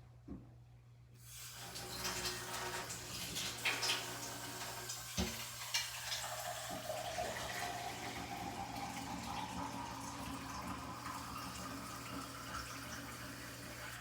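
Water running from a tap into a container, starting about a second in and shut off near the end. A ringing tone climbs in pitch as the container fills. A couple of light knocks are heard.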